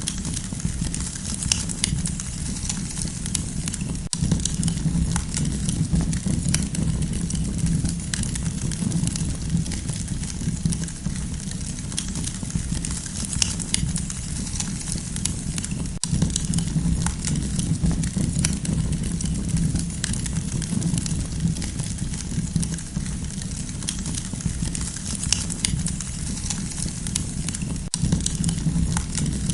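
Campfire crackling: many small irregular pops and snaps over the steady low rumble of the burning wood.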